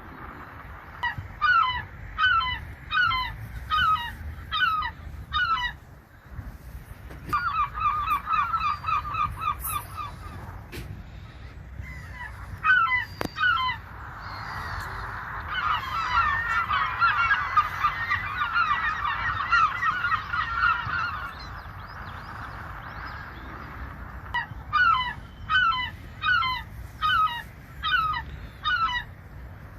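Seagulls calling. Several series of short, sharp, repeated calls come in quick runs, and in the middle many gulls call at once in a dense overlapping chorus. A steady low rumble sits underneath.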